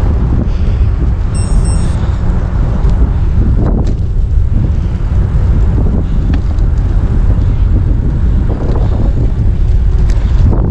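Loud, steady wind buffeting on the microphone over the low rumble of a moving vehicle on the road.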